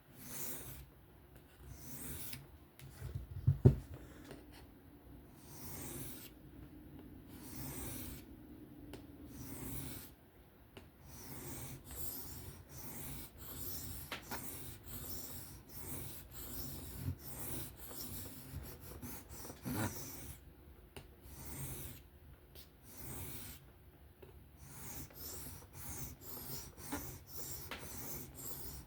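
Steel knife blade being stroked freehand across a sharpening stone: a run of rasping strokes, one every second or so, coming quicker in the last few seconds. A single loud thump about four seconds in.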